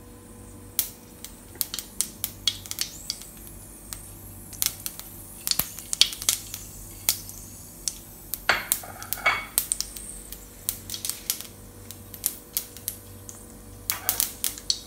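Mustard seeds popping and spluttering in hot oil in a pan: irregular sharp pops, several a second at times, over a steady low hum.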